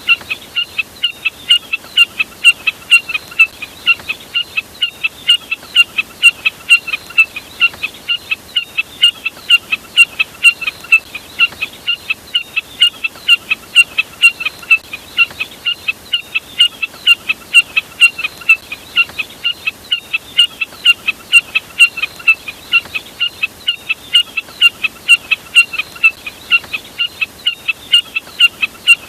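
Jack snipe call: a steady, unbroken string of short, sharp notes, about three to four a second.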